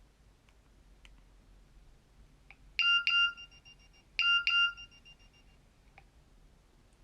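Nokia 3100 mobile phone's loudspeaker playing a short alert tone: two pairs of quick, high beeps, the second pair about a second and a half after the first.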